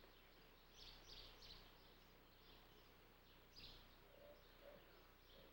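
Near silence with a few faint, short bird chirps scattered through it.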